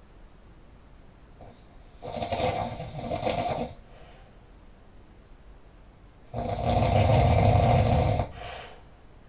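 Loud snoring: two snores about four seconds apart, the second louder and longer than the first, with quiet between them.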